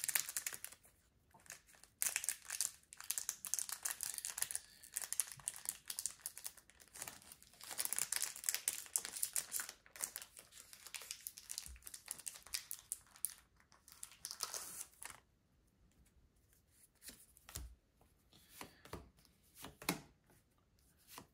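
Foil wrapper of a Pokémon TCG booster pack being torn open and crinkled, a dense crackling that runs for about fifteen seconds. Then a few seconds of quieter, scattered clicks follow as the handling settles.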